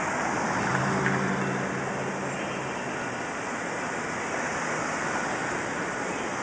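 Street traffic at an intersection: a car engine hums past from about half a second to three seconds in, over a steady rushing noise.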